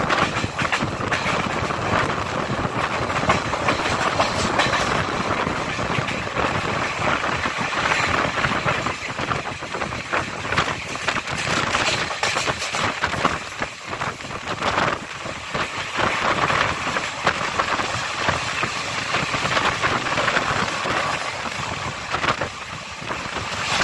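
Passenger train running along the track, heard from an open carriage doorway: a steady rumble and rattle of the carriage and its wheels on the rails.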